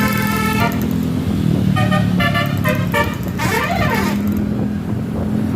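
Bus telolet horn, a multi-tone musical air horn: a tune dies away early, then three short chord blasts and a quick sliding sweep sound over the steady drone of the bus engine.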